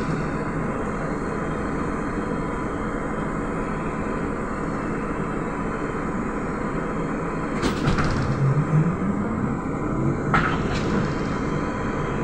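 Inside a Trolza-5275.05 Optima trolleybus on the move: a steady running rumble. From about eight seconds in, the electric traction drive's whine rises in pitch as it gathers speed, with a few short clicks along the way.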